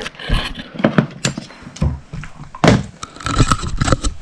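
A small dog working at a ball toy to get treats out: scattered knocks, clatters and rustling as the ball is pushed and nosed about.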